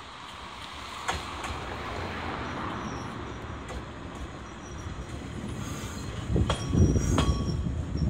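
JR West 115 series electric train arriving, its wheel-on-rail rumble growing steadily louder as it approaches. A thin high wheel squeal sets in about five seconds in. Heavy knocks follow as the leading wheels pass close by over the rail joints.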